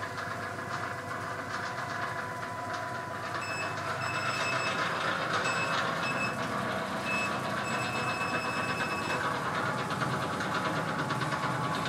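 Vibra-Trim VT400 vibration platform running under a standing user, its motors giving a steady hum with some rattle. From about three and a half seconds in, a run of short high beeps comes from the control console as the setting is stepped up, and the machine gets a little louder.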